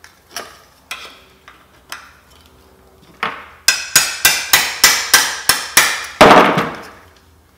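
Hammer striking a steel punch to drive out a drilled-out fastener: a few light taps, then from about three and a half seconds in a quick run of about nine sharp, ringing blows, roughly three a second, the last one the loudest.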